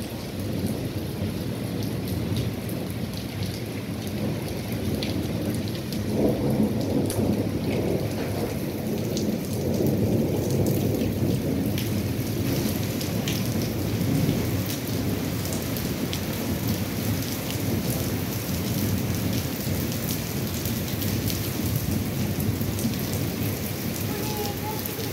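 Steady rain falling, with scattered ticks of drops hitting nearby surfaces, under a low rumble of thunder that swells about six seconds in and stays strong until about fourteen seconds in.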